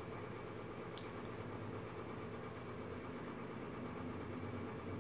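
Steady low hum, with a German Shepherd biting down on a tennis ball in her mouth giving a few faint clicks about a second in.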